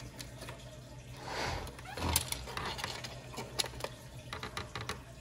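Light, scattered clicks and rustles of small plastic parts being handled: a small motor and its wiring being worked into the plastic back shell of a Big Mouth Billy Bass singing fish. There is a brief rustle about a second and a half in and a sharper click just after two seconds.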